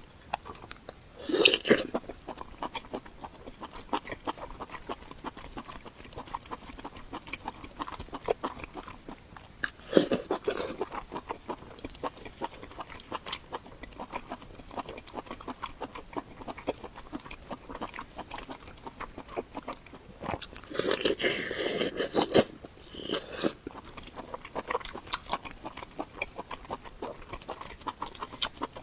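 Close-miked chewing and wet mouth sounds of a person eating, a steady run of small smacks and clicks with a few louder bursts about one and a half, ten and twenty-one seconds in.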